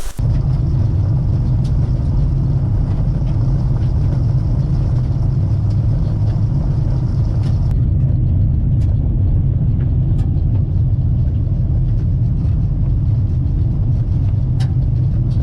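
Car driving on an unpaved gravel road: a steady low rumble of tyres and engine, with a few scattered small clicks.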